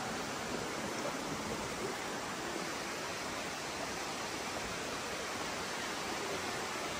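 Steady, even rushing noise with nothing standing out from it.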